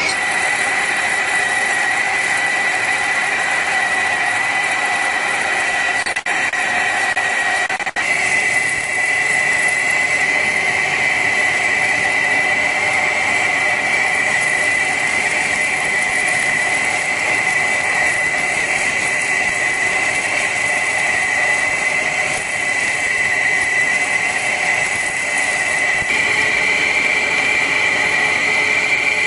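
Heavy metal-turning lathe cutting steadily, with a continuous high-pitched squeal from the cut. The level dips briefly twice, about six and eight seconds in.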